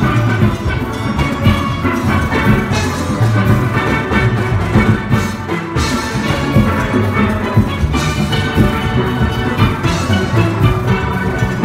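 A steel orchestra playing together: ringing melody and chord notes from the front-line steel pans over the deep, rhythmic notes of the bass pans, which are made from full-size oil drums.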